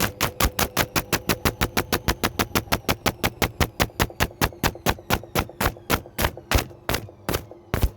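Washing machine spinning with something inside knocking against the drum in a rapid, even rhythm over a steady motor hum. The knocks run at about eight to ten a second, then slow to about four a second near the end as the drum winds down.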